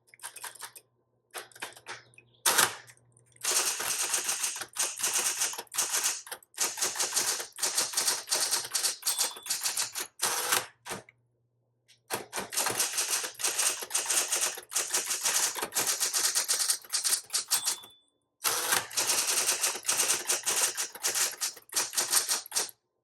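Smith-Corona Electra 220 electric typewriter typing sentences: rapid runs of sharp key strikes in bursts of a few seconds, with short pauses between them.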